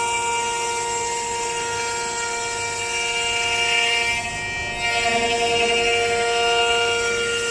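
CNC router spindle running with a steady high whine over cutting noise, dipping briefly about four and a half seconds in before picking up again.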